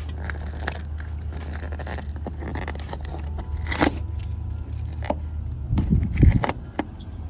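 A pry tool scraping and clicking under a BMW roundel emblem as it is worked loose from the adhesive holding it to the car, in irregular scrapes and sharp clicks. A cluster of louder knocks comes near the end, over a steady low hum.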